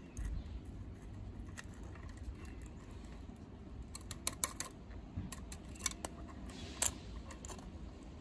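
Small plastic and metal clicks and taps as a diecast scale-model side-loader garbage truck's arm and toy trash cart are worked by hand. A quick cluster of sharp clicks comes about four seconds in, as the cart is tipped over the hopper, and single clicks follow near six and seven seconds.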